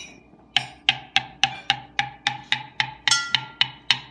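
A ceramic coffee cup of hot chocolate tapped steadily, about three to four taps a second, starting after a short pause. Each tap rings at a pitch that slowly rises from tap to tap. This is the hot chocolate effect: the pitch climbs as the bubbles stirred into the drink clear.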